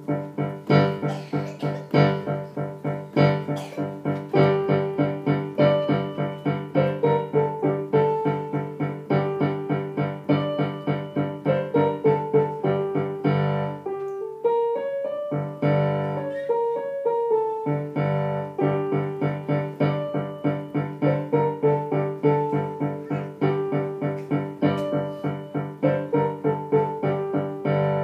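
Digital piano being played: a steady, rhythmic piece of evenly repeated notes over a low left-hand part. The bass thins out briefly about halfway through.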